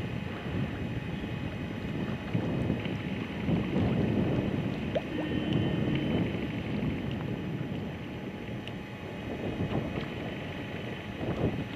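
Wind blowing across the microphone over open water: a steady low rushing noise, a little louder about four to six seconds in.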